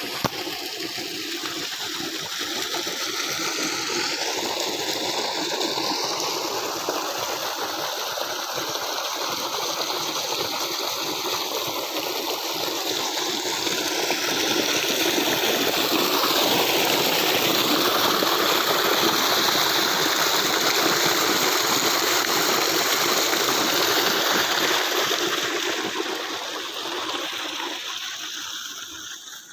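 Water gushing from an irrigation pump's outlet pipe into a field channel: a steady rush that grows louder about halfway through and fades near the end.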